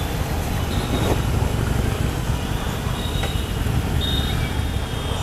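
Harley-Davidson Sportster 883 Superlow's air-cooled V-twin engine running steadily with a deep, continuous rumble, mixed with road and traffic noise.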